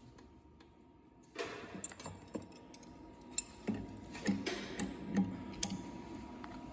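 Irregular light clicks and metallic clinks of small metal parts and tools being handled at a soldering machine, starting about a second and a half in, with a faint steady whine underneath.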